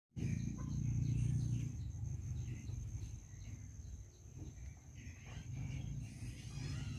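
Rural garden ambience: scattered bird chirps over an insect's steady high drone, with a low rumble underneath.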